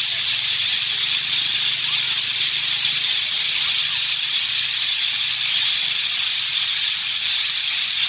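Rainforest insect chorus: a steady, dense, high-pitched buzzing that does not let up, with a few faint short bird calls now and then.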